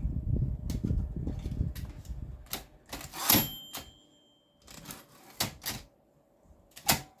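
Olympia SM3 manual typewriter mechanism rattling and clacking. About three seconds in, a loud clack comes with a clear ringing tone that fades over about a second, like the typewriter's bell. A few separate sharp clacks follow, the loudest near the end.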